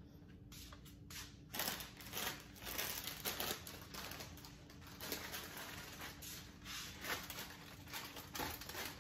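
Plastic snack wrappers crinkling and rustling in irregular bursts as small packets of cookies are handled and put into a basket.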